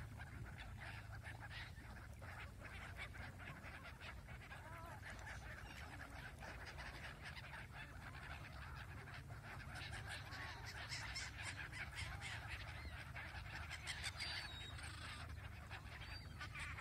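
A flock of gulls calling continually as they flutter and feed on the water, many short calls overlapping, growing busier and a little louder past the middle.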